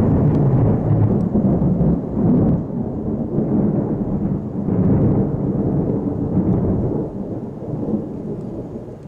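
A long roll of thunder: a loud, low rumble that swells several times and fades away near the end.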